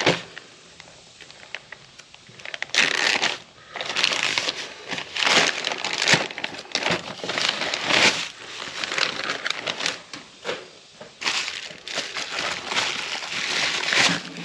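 Plastic poly mailer and bubble-wrap packaging crinkling and rustling in irregular spells as a small box is pulled out and unwrapped, busiest from about three seconds in.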